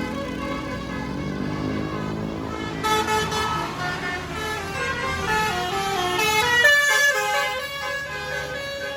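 Bus 'telolet' musical horn playing a tune of changing notes, several horn tones sounding together, over a bus engine running. The horn gets louder about three seconds in.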